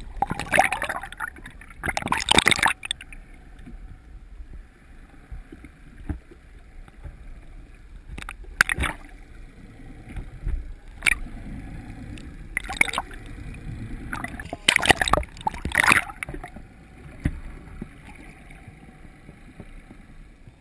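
Sea water sloshing and gurgling around a camera dipped at and just under the surface, muffled underwater, with irregular loud splashes every few seconds as waves wash over it.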